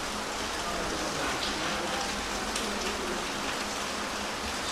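Steady, even rain-like hiss with a faint low hum underneath, and a couple of faint ticks.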